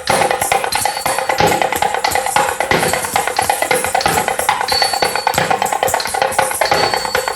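Thavil drum played in fast, sharp strokes, its harsh, strident sound, with a steady tone held beneath the drumming.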